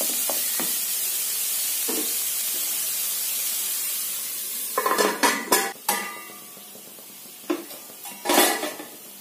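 Banana flower stir-fry sizzling in a non-stick kadai, with a wooden spatula scraping through it now and then. About five seconds in, a steel lid clanks and rings against the pan several times, with another clank near the end, and the sizzle settles to a quieter hiss.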